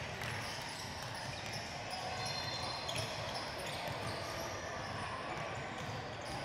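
Basketball game sound: a ball bouncing on the court and players moving, over a steady background of a gym and a murmur of voices.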